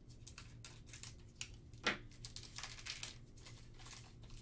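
Foil trading-card pack wrapper crinkling and being torn open by hand in a run of short crackles, with one louder crackle about two seconds in.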